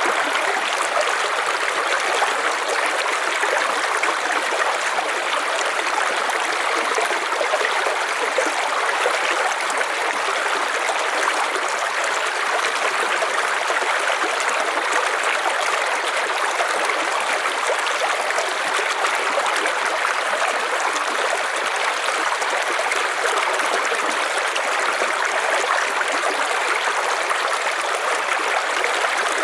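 A river's water flowing steadily over stones, an even rushing and babbling with no breaks.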